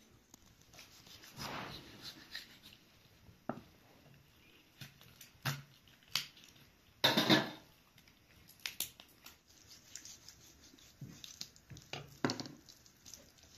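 Knife cutting up a raw whole chicken on a wooden chopping board: scattered soft cuts, clicks and knocks of the blade and the meat being handled, the loudest a half-second crunch about seven seconds in.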